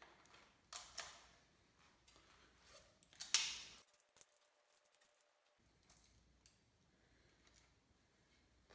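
A few sharp metal clicks from a socket wrench on the connecting-rod cap nuts of an Oldsmobile 350 V8 as they are broken loose, the loudest a crack about three seconds in, with faint clinks of tools between.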